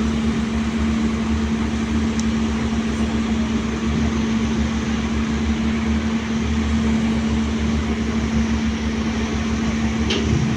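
Hydraulic excavator's diesel engine running steadily at a constant speed, with a pulsing low rumble under a steady hum. A short sharp click near the end.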